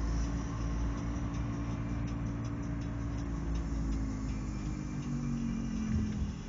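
Road and engine noise inside a moving car's cabin: a steady low rumble with an engine hum that falls slightly in pitch about five to six seconds in, and a few faint ticks in the middle.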